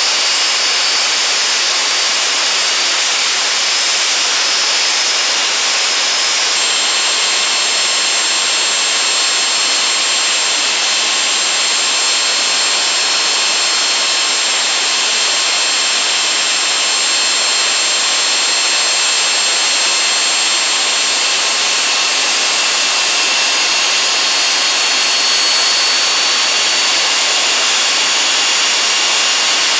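Rolls-Royce Marine Spey gas turbine running steadily on a test stand, heard at its intake: a loud, even rush with several steady high whining tones. The whine shifts in pitch about six and a half seconds in.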